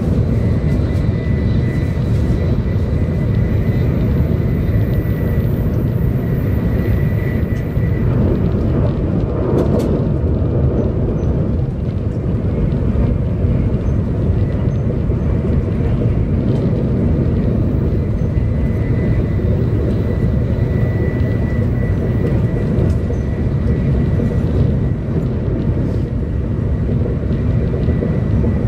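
Cabin noise of a 700 Series Shinkansen running at speed: a steady low rumble of wheels and rushing air, with a faint thin whine that comes and goes. The rumble swells briefly about ten seconds in.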